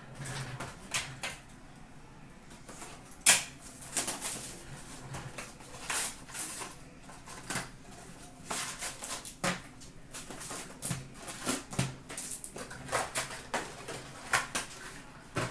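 Hockey card hobby box being opened and its foil packs taken out and set down on a glass counter. The cardboard and foil wrappers rustle and crinkle, with irregular small taps throughout and the sharpest click about three seconds in.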